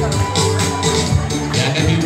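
Loud, upbeat music with a steady bass beat and bright percussion hitting several times a second.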